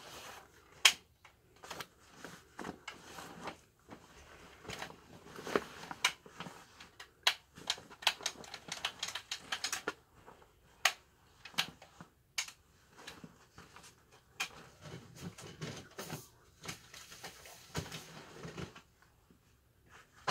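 Irregular taps, clicks and rustling close to the microphone: handling noise as a shiny black cap is pulled on and adjusted over the hair, thinning out near the end.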